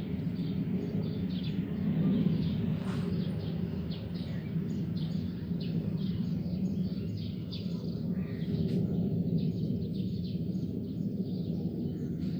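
A steady low droning hum made of several layered pitches, the unexplained sound heard in the sky, with many short bird chirps over it.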